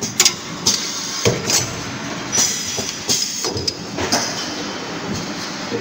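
Automatic CNC lathe with a pneumatic bar feeder running: a steady mechanical noise with irregular sharp clacks and knocks from the moving slides and feeder.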